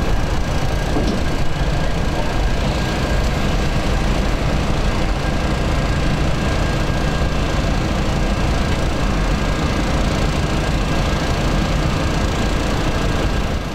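Diesel-electric locomotive engine running steadily under way at low speed: a deep, even rumble with a thin steady whine above it.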